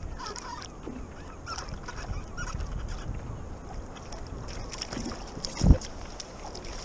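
Small sea bass splashing at the side of a plastic kayak as it is drawn in and grabbed by a gloved hand, with light, scattered splashes of water. One sharp knock about five and a half seconds in.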